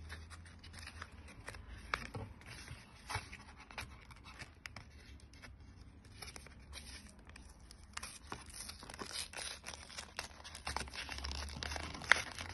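Packaging of a makeup brush set being handled and opened by hand: scattered rustles, scrapes and small clicks, busier in the second half, with one sharp click near the end.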